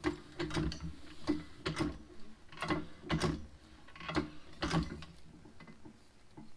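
Hydraulic jack being pumped by hand, its handle and mechanism clicking in repeated strokes about once a second, lifting a tractor's hydraulic belly pump up into position.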